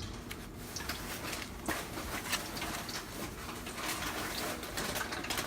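Floured pork chop frying in hot grease: irregular crackling and popping.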